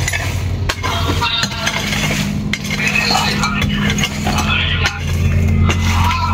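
Repeated clinking and scraping over a steady low hum.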